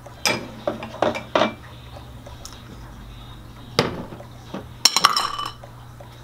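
Utensils and small glass bowls knocked and set down on a tabletop: a few light clatters in the first second and a half, one knock near four seconds, and a ringing clink about five seconds in, over a low steady hum.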